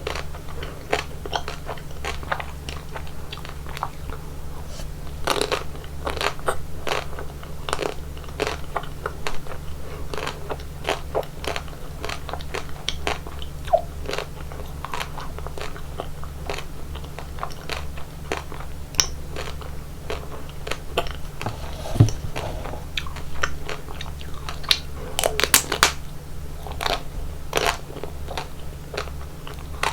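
Close-miked biting and chewing of chocolate ice cream: a steady run of crisp crunches and crackles, thickest and loudest a little past the middle.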